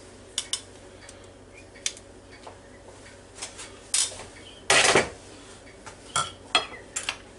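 Knife and metal tongs clinking against a china plate: scattered sharp clicks, with a louder clatter about five seconds in as the metal tongs are set down on the counter.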